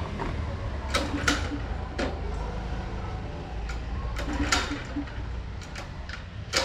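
Go-kart engine idling with a steady low rumble, with several sharp clicks or knocks over it.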